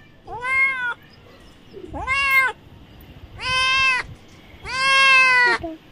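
A cat meowing over and over: four drawn-out meows about a second and a half apart, the last one the longest.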